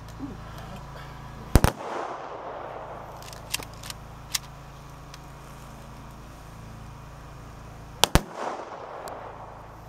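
Funeral gun salute: two volleys of rifle fire by an honour guard, about six and a half seconds apart. Each volley is a ragged double crack followed by a rolling echo, with a few faint clicks in between.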